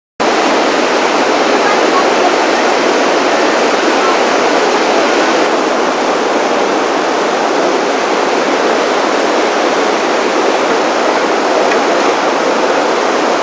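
Whitewater rapids rushing, a loud and steady noise of fast water that changes slightly in tone about five seconds in.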